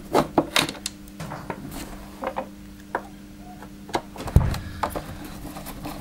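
Clicks and light knocks of a long-shank screwdriver working screws out of a Dyson DC08's plastic motor housing, with a single heavy thump about four and a half seconds in. A faint steady hum sits underneath for part of the time.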